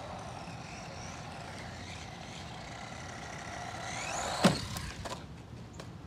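Haiboxing 18859E 1/18-scale RC monster truck's 390 brushed motor and drivetrain whining as it drives on pavement, the whine rising as it speeds up, then a single loud knock about two-thirds through as the truck hops the curb onto the grass.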